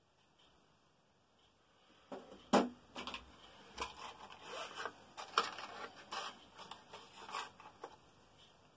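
A cardboard matchbox being handled and its drawer slid open, heard as an irregular run of scrapes and clicks, the sharpest about two and a half seconds in.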